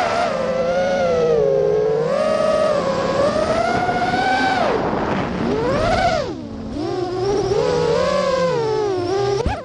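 FPV racing quadcopter's Lumineer 2206 2350 kV brushless motors spinning HQ 5x4.5x3 tri-blade props, heard from the onboard camera: a loud motor-and-prop whine that rises and falls sharply with on-and-off throttle. A sharp knock comes near the end.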